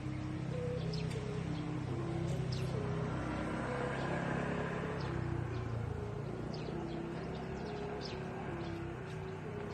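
Thai kite hummer (sanu) with a large rattan-leaf reed droning in the sky, a low steady hum under a tone that keeps stepping between a few pitches as the wind's pull on it varies. A broad rushing sound swells and fades in the middle, and birds chirp briefly throughout.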